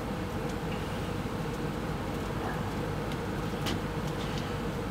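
A steady low mechanical rumble and hum, with a few faint clicks.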